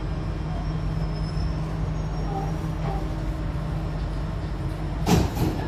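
Jakarta MRT electric metro train running between stations, heard from inside the car as a steady low rumble. Two short knocks come about five seconds in.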